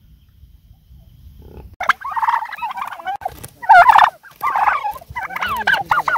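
Domestic turkeys gobbling: several warbling gobbles in quick succession, starting about two seconds in.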